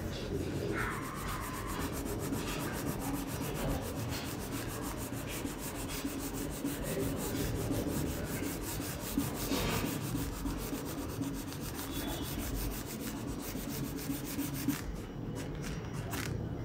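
Crayon rubbing on paper in steady, scratchy strokes as it shades in an area of a drawing.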